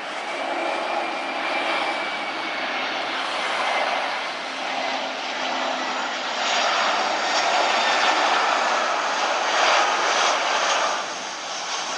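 Jet airliner engines at takeoff power: a loud, steady roar with a high fan whine. It grows louder about six seconds in and eases off near the end.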